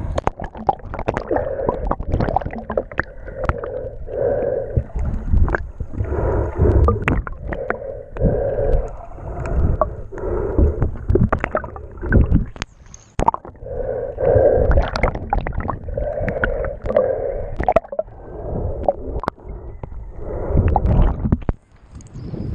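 Muffled water sloshing and bubbling around an action camera held partly and then fully underwater. Swells of sound come and go every second or two, with many small clicks and knocks.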